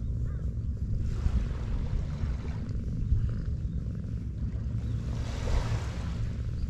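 Small waves washing on a sandy shore, swelling about a second in and again near the end, over a steady low rumble of wind on the microphone.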